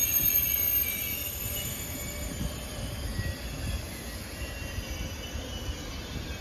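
OUIGO TGV Duplex double-deck high-speed train rolling past while slowing on arrival: steady low wheel rumble, with a faint high-pitched squeal that fades about a second in.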